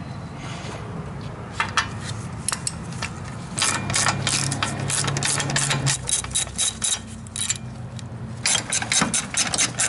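Hand socket ratchet clicking in quick runs as it backs out the 15 mm brake caliper bracket bolts, the clicks coming sparsely at first and then in long fast runs. A low steady hum runs underneath.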